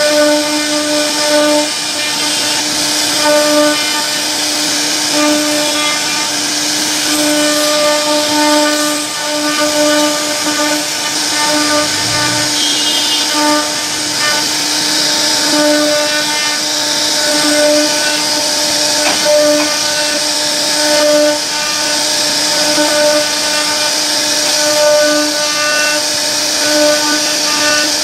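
CNC router spindle running at a steady pitch while its bit carves a relief pattern into a wooden board, with the hiss of the bit cutting wood. The tone swells and fades every second or so as the cutter moves along the pattern.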